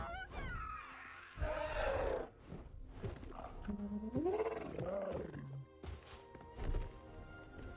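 Background music with an animal-like creature calling about three times, each call gliding up and down in pitch.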